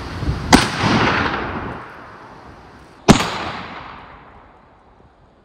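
Two rifle shots from a Saiga semi-automatic rifle, about two and a half seconds apart, each followed by a long echo that dies away over a second or two. These are test shots at about 100–120 m to check a newly fitted red-dot (collimator) sight.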